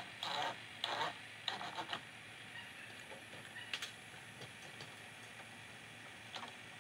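Vinyl gutter being handled and fitted by hand at the roof edge: a quick run of plastic scrapes and clicks, then a few single sharp ticks.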